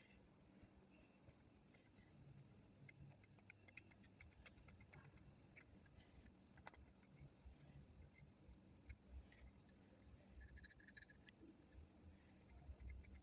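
Faint, scattered small clicks and scratches of a toothpick and paper towel working over the metal of a Zippo lighter's insert during fine cleaning.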